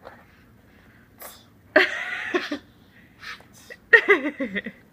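Two sneezes, one about two seconds in and another about four seconds in, each starting suddenly and trailing into a short voiced sound.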